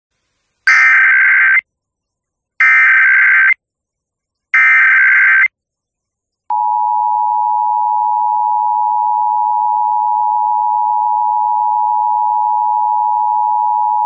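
Emergency Alert System SAME header: three loud one-second bursts of buzzy digital data, about two seconds apart, that encode the alert. About six and a half seconds in comes the steady two-tone EAS attention signal, marking the start of an emergency alert.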